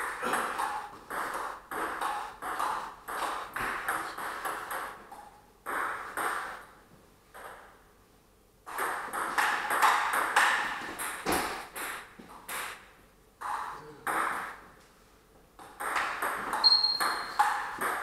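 Table tennis rallies: the ball clicking back and forth off the bats and the table about twice a second, in several rallies with short pauses between them. There is a short high squeak near the end.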